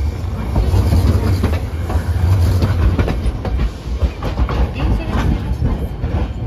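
Hiroshima Electric Railway 800-series tram no. 808 passing at close range: a steady low rumble of the car running on the rails, with irregular clicks and clunks of its wheels over the track.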